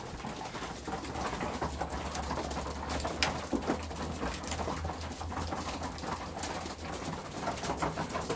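Flock of young racing pigeons cooing while they peck grain from trough feeders, many small beak clicks and scuffles on the feeders, with one sharper knock about three seconds in.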